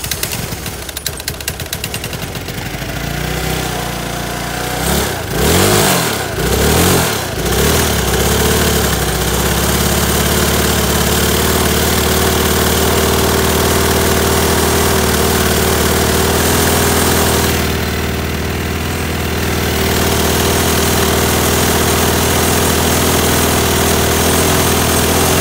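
Honda Helix 250 scooter's single-cylinder four-stroke engine running with dish soap in the crankcase in place of engine oil. It runs unevenly at first, revs up and down several times about five to eight seconds in, then settles to a steady idle, still running despite the soap.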